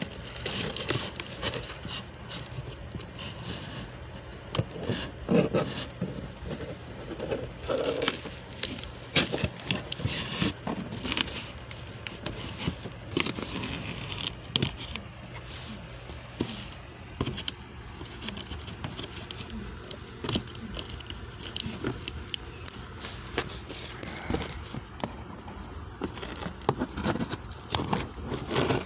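Scissors scraping and cutting through packing tape on a cardboard shipping box, with irregular clicks, rustles and knocks as the box is handled and opened, over a steady low hum.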